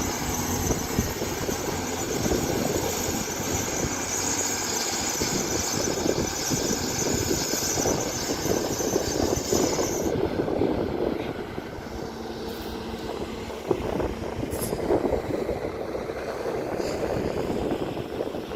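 Excavator working: diesel engine running with the clatter and grind of the machine digging, steady throughout; a high hiss drops out about halfway through.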